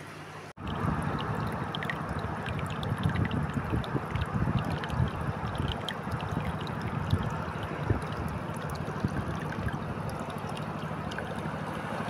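Shallow seawater washing and trickling over rocks in a tide pool, with small gurgles and splashes, and wind rumbling on the microphone. It starts suddenly about half a second in.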